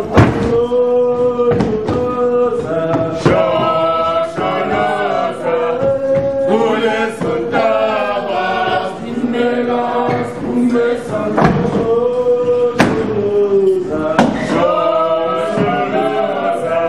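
A group of voices singing together in a chant-like choral song, holding long notes, with sharp percussive hits every second or two.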